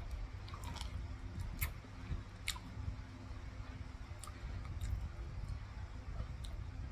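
Close-up eating sounds of a sea bass meal: chewing and wet mouth sounds with scattered sharp clicks, roughly one every second or so, over a low rumble.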